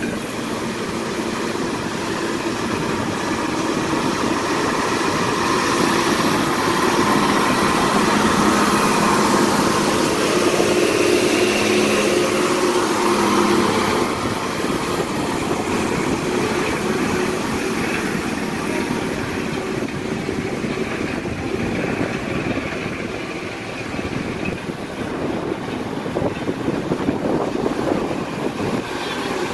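Tata 1613 tipper truck's diesel engine running as the truck drives slowly along a rutted dirt road. It grows louder as the truck passes close by about halfway through, then fades.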